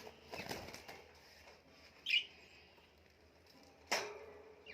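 Small pet cage birds fluttering their wings in the cage, with one short high chirp about two seconds in. A sharp knock near the end.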